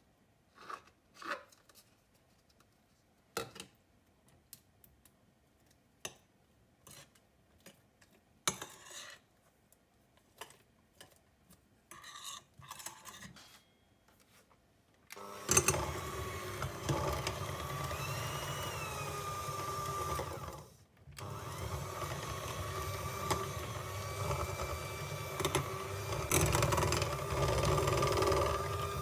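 Scattered light knocks and clinks of utensils against a glass mixing bowl. About halfway in, a Kenwood electric hand mixer starts, its motor running steadily as the beaters whip mascarpone into the egg mixture. It cuts out briefly about two-thirds in, then runs again.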